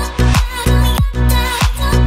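Background music: an electronic dance track with a steady beat and deep kick drum.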